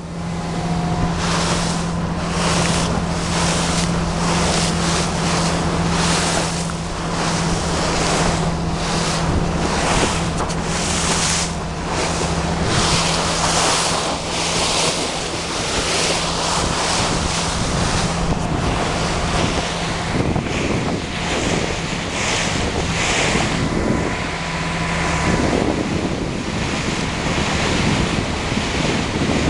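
Small motorboat running fast across choppy water: the hull slaps the waves about once a second amid hissing spray, over a steady low engine hum, with heavy wind buffeting the microphone. The engine hum drops away a few seconds before the end.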